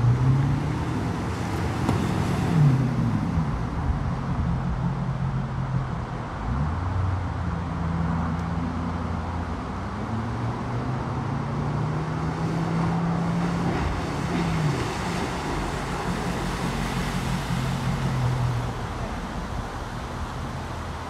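Motorboat engine running at low speed, its pitch rising and falling several times as the throttle is eased up and back off while the boat manoeuvres.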